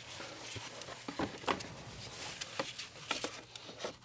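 Light, irregular clicks and taps of a small module and its mounting bracket being handled and set into place.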